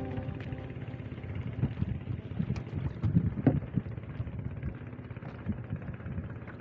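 Wind buffeting the microphone on a small fishing boat at sea: an uneven low rumble with irregular thumps and a few faint knocks.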